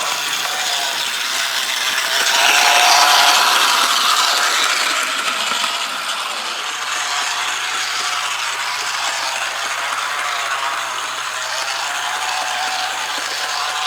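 Mantua Camelback model steam locomotive running on its track, its motor and gears whirring with a steady mechanical rattle that is a little louder for a few seconds about two seconds in. It has just been cleaned and lubricated and is still running in, not yet fully smooth.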